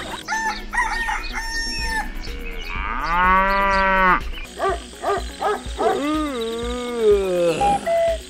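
Rooster crowing sound effect: a long crow about three seconds in, then shorter clucking calls and a second long, wavering crow.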